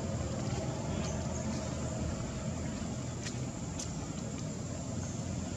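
Steady outdoor background rumble and hiss, with two faint clicks a little past the middle.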